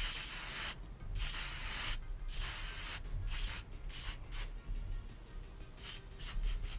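Cape aerosol hairspray spraying in a series of hissing bursts, the first few about a second long, then quicker short puffs near the end, setting curled bangs so they hold.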